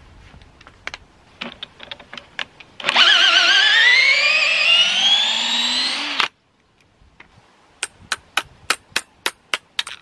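Cordless drill with a magnetic quick-change bit holder running a long screw in wood: a motor whine lasting about three seconds that wobbles and then climbs steadily in pitch, then cuts off. A string of sharp clicks, about three a second, follows near the end.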